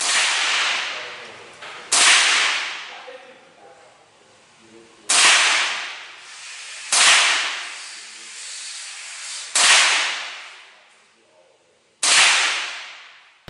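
Ruger 10/22 .22 LR semi-automatic rifle fired as six single shots, two to three seconds apart. Each sharp crack is followed by a long echoing decay off the hard walls of an indoor range.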